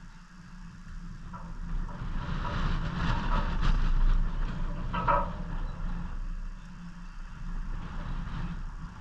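A road vehicle passing by, swelling to its loudest a few seconds in and fading away again, over a steady low hum.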